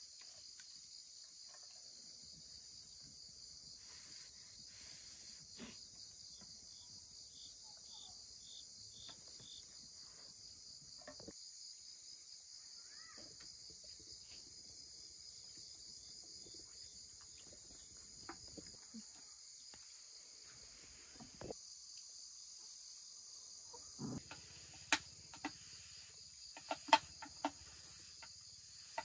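A steady, high-pitched insect chorus chirping throughout. A short run of quick chirps comes about a third of the way in, and faint knocks are scattered through it, with a few sharper clicks near the end.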